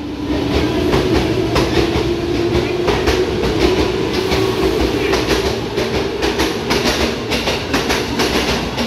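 JR 205 series electric commuter train moving off along the platform: its traction motors give a steady whine that climbs slowly in pitch. Wheels clack over rail joints, the clacks coming quicker in the second half.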